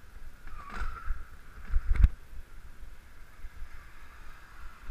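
Wind rumbling on the microphone of a camera riding along a street, with a single sharp knock about two seconds in.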